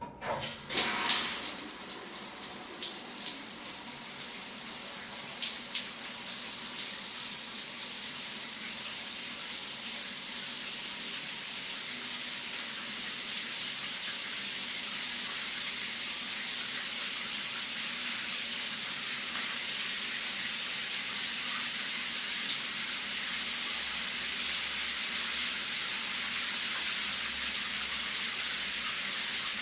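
Shower running, its spray falling in a steady hiss. It starts suddenly about a second in with a brief louder gush, then runs evenly.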